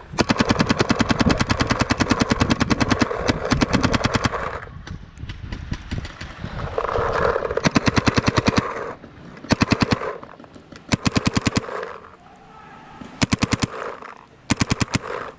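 Paintball marker, a Planet Eclipse Axe Pro, firing rapid strings of shots: one long burst of about four and a half seconds, then several shorter bursts.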